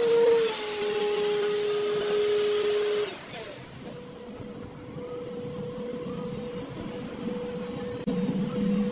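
A machine's motor running with a steady whine, cutting off about three seconds in and leaving a quieter steady hum.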